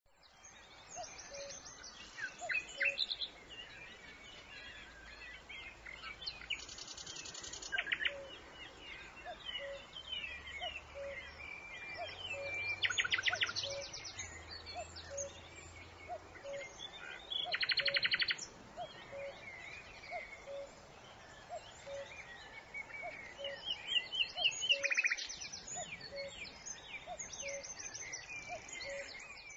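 Several songbirds singing and calling over one another: bright chirps and whistled phrases, with a few short, fast trills standing out. Beneath them a soft low note repeats steadily, a little more than once a second.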